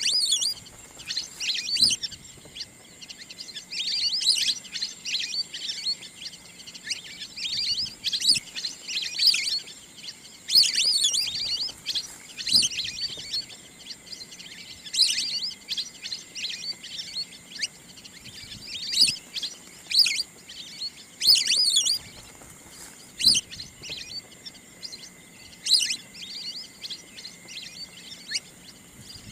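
Recorded wild duck calls: high-pitched chirping twitters in repeated bursts every second or two, with short quieter gaps between them.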